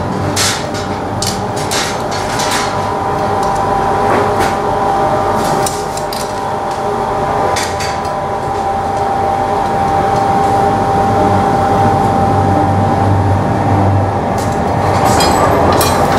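Steady roar of a glassworks furnace and its blower, with a steady whine, under irregular sharp clicks and taps of steel glassblowing jacks working a hot crystal wine-glass stem as the blowpipe rolls on the chair arms.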